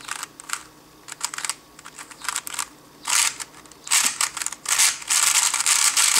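A 3x3 speedcube being turned by hand: plastic layers clicking in short runs of turns, then a fast unbroken run of turns near the end, which is the loudest part.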